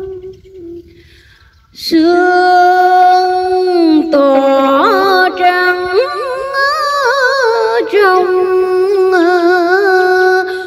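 A woman's solo voice chanting Vietnamese Buddhist verse, drawing out long held notes with a wavering vibrato. It pauses briefly at the start and comes back in about two seconds in.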